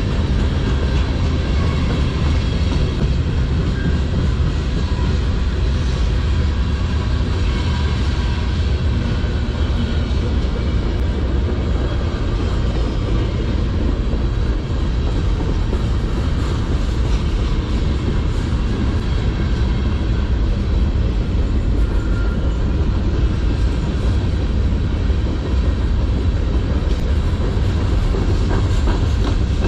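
Freight cars of a CN manifest train rolling past on the rails: covered hoppers and boxcars making a steady, loud rumble of wheels on track.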